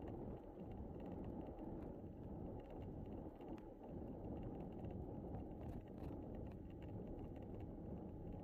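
Folding bicycle riding along a paved trail: a steady rumble of wind and rolling tyres on the bike-mounted microphone, with faint small clicks and rattles.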